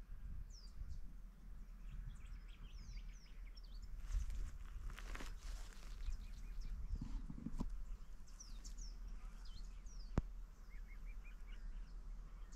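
Birds chirping and calling all around, over a low wind rumble on the microphone, with a few crunching footsteps on gravel ballast.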